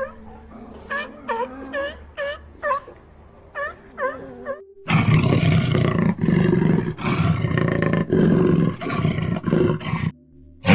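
A run of short chirping calls, about two or three a second, then about five seconds in a loud, rough big-cat roaring growl takes over and runs for about five seconds before cutting off.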